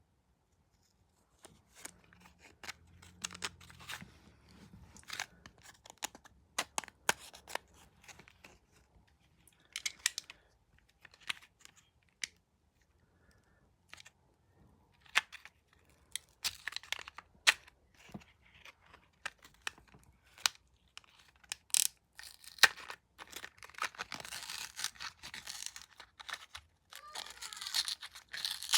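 Small product packaging being handled and opened by hand: scattered sharp clicks and short rustles, then longer stretches of paper or plastic tearing and crinkling in the last few seconds.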